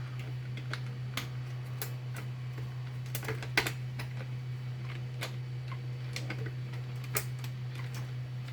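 Irregular light clicks and taps of hard plastic blaster parts, the Nerf Zombie Driller's shell and cylinder, being handled and fitted together, with a sharper click near the middle and another near the end. A steady low hum runs underneath.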